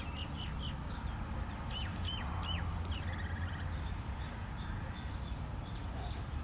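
Wooden spatula stirring a thick chicken curry in a non-stick pot, over a steady low hum, with many short high chirps scattered through it.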